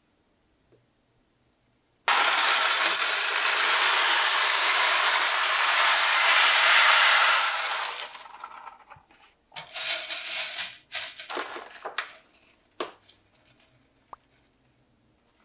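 Dry small pasta shells pouring from a cardboard box into a ceramic baking dish: a loud, dense rattle of many shells hitting the dish and each other, lasting about six seconds, then a few shorter rattles as the last shells are shaken out.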